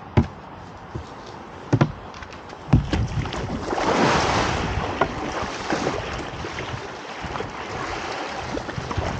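A plastic whitewater kayak launching off a grassy riverbank into the river. A few sharp knocks from the hull in the first three seconds, then a splash about four seconds in as it hits the water. After that, water washes along the hull while paddle blades dip in.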